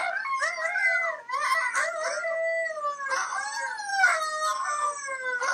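Husky howling in long, wavering calls that bend up and down in pitch, with a brief break about a second in.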